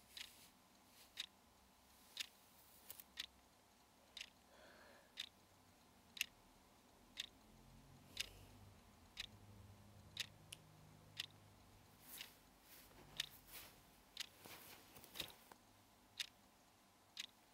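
Clock ticking steadily, about one tick a second, against near silence.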